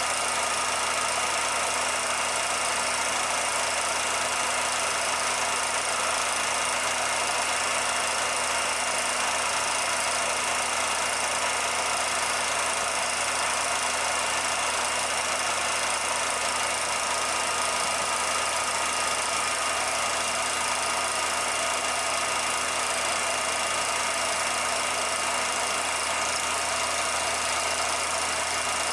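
Steady whirring mechanical hum with hiss and a few fixed tones, even and unchanging: a 16mm film projector running, not sound from the locomotive, since the film itself is silent.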